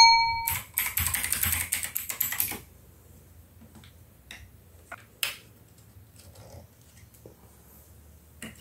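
A sharp click with a short beep, then a rapid run of clicking and rattling for about two seconds. A few scattered light taps follow as a cable and small parts are handled on a glass-topped desk.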